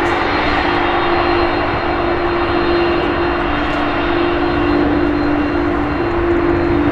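Airbus Beluga A300-600ST's twin General Electric CF6-80C2 turbofans running during takeoff: a loud, steady jet roar with two steady low droning tones under it.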